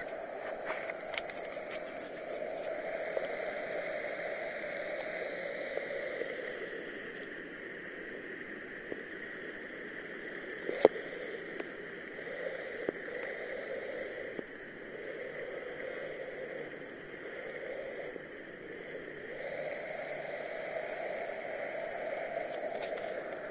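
Steady rushing noise of a bicycle ride picked up by a bike-mounted camera: wind and tyre noise that swells and eases, with occasional light clicks and one sharp knock about eleven seconds in.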